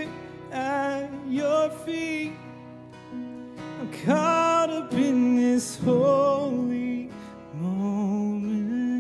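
A man singing a slow worship song, with sustained, wavering held notes, accompanied by his own Yamaha acoustic guitar.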